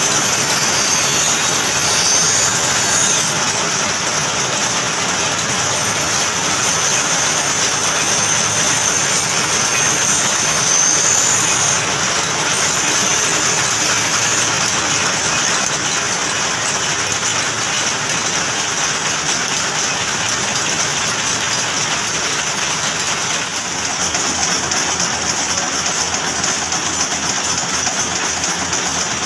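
Flywheel-driven, wire-fed screw-making machines running with a steady, rapid mechanical clatter.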